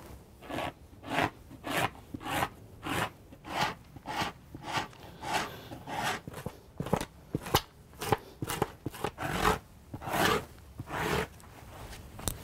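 Rhythmic scraping strokes on a wet elk hide draped over a post, worked by hand during brain tanning: short rasping strokes about one every half second or so, some louder than others.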